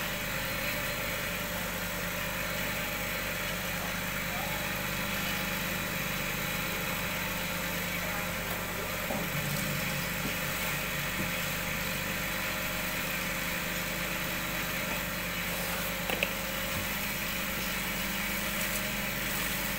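Cotton candy machine running: its motor spins the head with a steady hum while the gas burner under the jumbo cast-aluminium heating bowl hisses. A short click about 16 seconds in.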